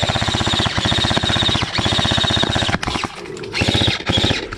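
Airsoft electric guns firing full-auto: a fast, even rattle of shots with the gearbox whirring, in long bursts that break off briefly a few times in the second half.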